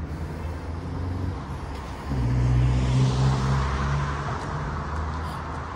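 Road traffic: engine hum and tyre noise of cars on the road, growing louder as a car passes close by about two seconds in, then easing off.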